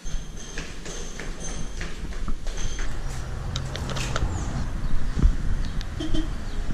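Footsteps in flip-flops going down stairs, with scattered clicks and knocks and a single heavier thump about five seconds in.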